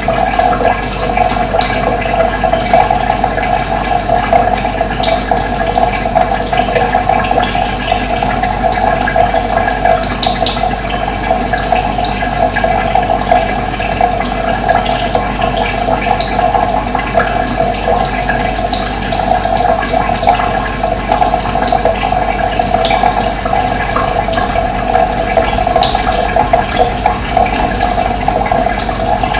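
Steady rushing of running water, with scattered short, high bird chirps over it.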